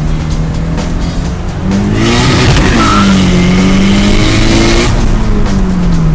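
Turbocharged 2013 Scion FR-S's flat-four engine in a full-throttle pull. The engine pitch climbs and a loud turbo rush joins about two seconds in, with a brief dip in pitch near the middle. Near five seconds the throttle lifts: the rush cuts off suddenly and the revs fall away.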